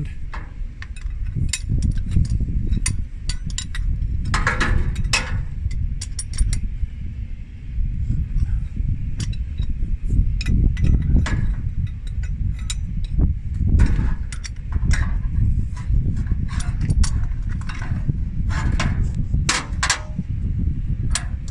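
Metal clinks and taps of wrenches tightening hydraulic hose fittings, irregular and with brief ringing, over a steady low rumble.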